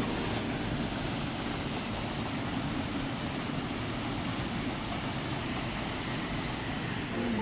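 Steady rush of flowing river water, an even noise with no separate splashes.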